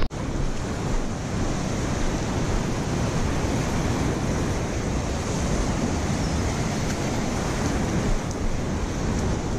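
Steady wind buffeting the microphone over the wash of surf against the jetty rocks.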